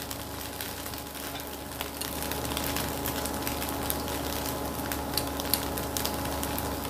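Boiled rice noodles frying in hot oil in a stainless steel pan: a steady sizzling hiss full of fine crackles, over a steady low hum.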